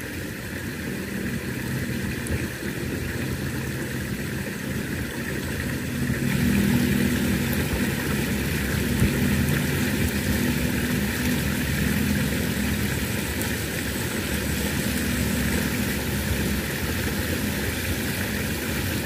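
Steady hum of an engine running at a constant speed, growing a little louder about six seconds in.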